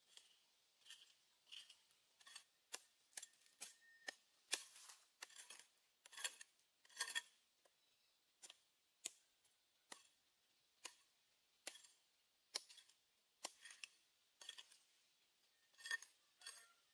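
Small metal hand hoe chopping and scraping into soil: a run of crisp strikes, roughly one to two a second and unevenly spaced, some louder than others.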